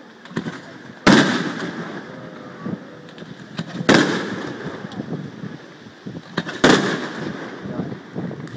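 Aerial firework shells bursting: three loud bangs about three seconds apart, each followed by a rolling echo, with smaller sharp cracks between them.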